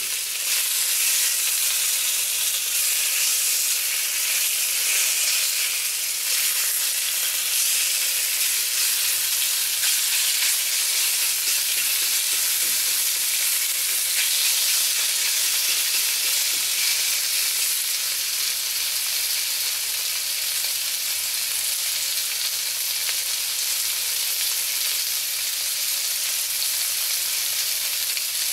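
Pork searing in a very hot cast iron wok: a steady, continuous sizzle of meat frying in oil.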